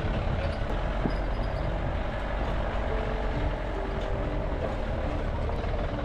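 Open safari jeep's engine running as it drives, a steady low rumble.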